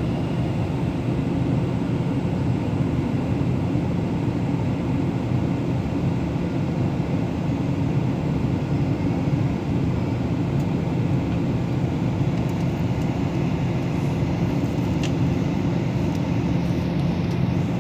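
Steady cabin noise of an airliner in flight: the even rush of engines and airflow with a low hum, unchanging throughout.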